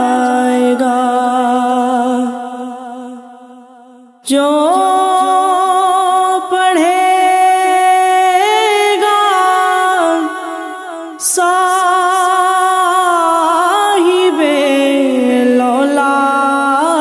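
A woman singing a naat a cappella in long, held, ornamented notes. The voice fades away about two seconds in, comes back sharply at about four seconds, and drops off briefly near eleven seconds before picking up again.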